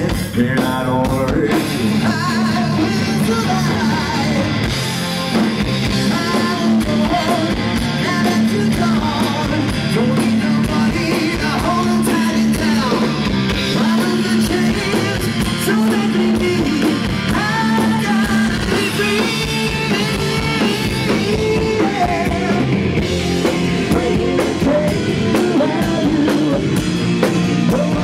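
Hard rock band playing: electric guitar, bass guitar and drum kit, with a lead melody over them.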